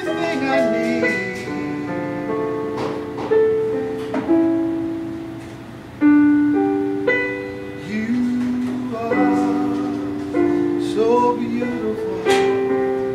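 Piano playing slow chords and notes, with a man singing sustained, wavering notes over it at times.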